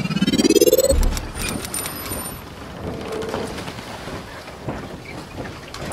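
Logo intro sound effect: a rising whoosh that ends in a low boom about a second in, followed by a long noisy shimmering tail with faint scattered clicks.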